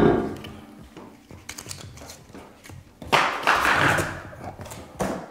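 Cardboard packing inserts being handled and pulled out of a large corrugated box: a knock at the start, then a loud stretch of cardboard scraping and rustling about three seconds in, and a shorter scrape near the end.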